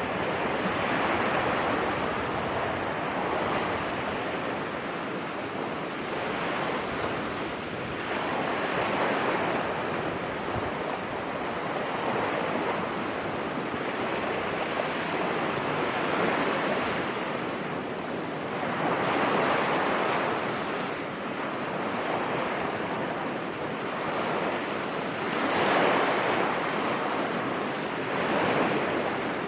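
Sea waves breaking on a beach: a continuous wash of surf that swells and eases every few seconds as each wave comes in.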